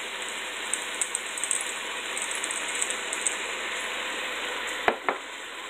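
A pepper grinder being twisted over a frying pan gives a run of quick ratcheting clicks for a couple of seconds, over the steady sizzle of sliced chicken frying. Two sharp knocks come near the end.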